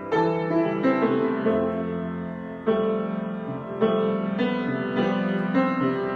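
Improvised piano music: chords struck every second or so, each ringing on and fading before the next.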